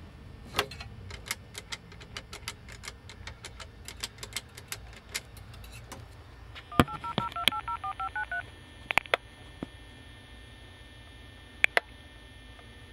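Bell payphone being dialed: a run of clicks as the keypad buttons are pressed, then a rapid string of about eleven touch-tone (DTMF) beeps as the phone sends the number down the line, followed by a few single clicks.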